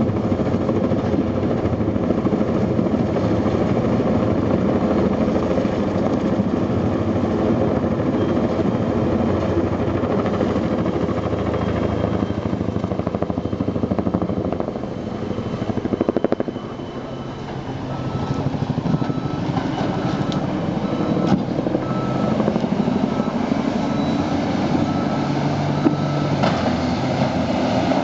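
Tandem-rotor Chinook helicopter running overhead, its rotors giving a steady rapid thumping over a loud engine drone that eases for a couple of seconds midway. In the second half a heavy machine's engine adds a steady low hum.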